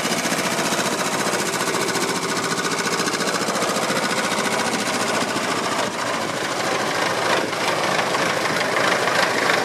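Vintage Someca 511 tractor engine running at low speed with a rapid, even knocking beat as the tractor drives by, getting louder near the end as it comes close.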